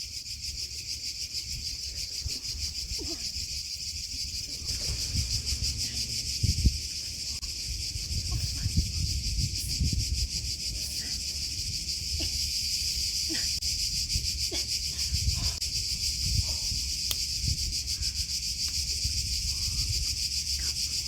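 Steady, high-pitched insect chorus, a dense fast pulsing buzz that does not let up, over a low rumble.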